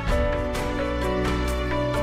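Instrumental music with held chords over a steady bass and a light tick about twice a second.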